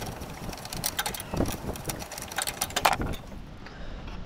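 Scattered clicks and light knocks from a screwdriver being worked on a screw and the plastic cowling of a ride-on mower being handled, about half a dozen sharp ticks over a low rumble.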